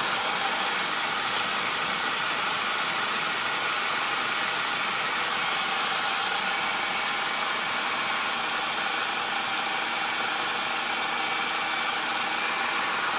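Cuisinart Elemental 11-cup food processor running steadily, its chopping blade spinning through finely ground peanuts that are about to turn into peanut butter.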